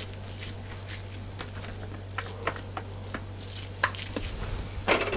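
Hands pulling portions of raw minced beef burger mix out of a plastic tray: scattered soft clicks and squishes of the meat and tray, with a louder clatter about five seconds in, over a low steady hum.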